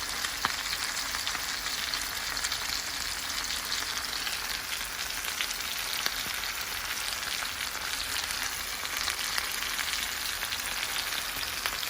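Roasted chicken frying in a pan over high heat, the fat sizzling steadily with fine crackles and pops as the skin crisps.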